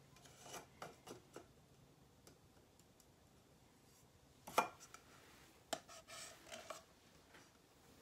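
Plastic cup and flat plastic scraper handled against a wet-painted canvas: soft rustling and plastic scraping, with a sharp click about four and a half seconds in and another just before six seconds.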